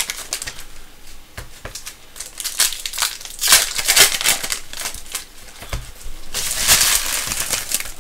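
Foil trading-card pack wrapper crinkling and tearing as it is pulled open by hand. It crackles in irregular spurts, then crinkles more steadily near the end. The seal is sticky and hard to open.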